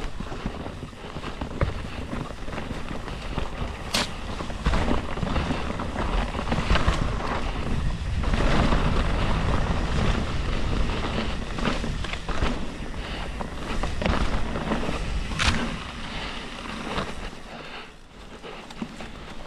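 Commencal Meta mountain bike ridden over a rocky, root-strewn forest trail: a steady rumble of tyres and frame over rough ground, with wind on the microphone and sharp knocks from impacts, clearest about four seconds in and again about fifteen and a half seconds in.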